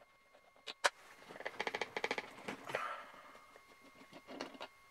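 Light metallic clicking and rattling as the drive-belt pulley is worked off an electric planer's rotor shaft by hand: two sharp clicks, then a run of quick ticks, and a few more faint clicks near the end.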